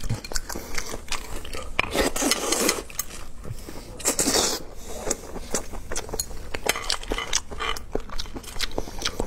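Close-miked eating of cooked langoustines: the tail meat bitten and chewed, with the shells crackling and clicking as they are handled. There are many small clicks throughout and louder bursts of crunching about two and four seconds in.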